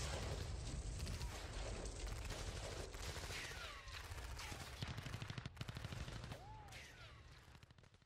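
Rapid machine-gun fire from an action film playing on a laptop, dense volleys of shots with a few short falling whines, fading out toward the end.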